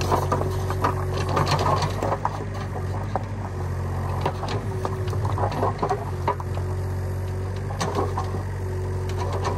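Mini excavator's diesel engine running steadily with a constant whine, overlaid by many irregular clanks and knocks of machine work.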